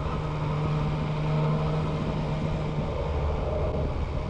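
Yamaha MT-09's three-cylinder engine running at a steady cruise, a steady hum, under a rush of wind noise.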